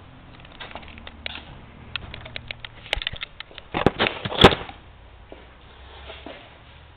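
Scattered clicks and knocks from the BMX bike being handled, with a cluster of louder knocks about four seconds in.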